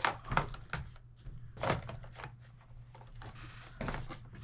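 A few short knocks and clunks of a tool being handled and set down, over a steady low hum.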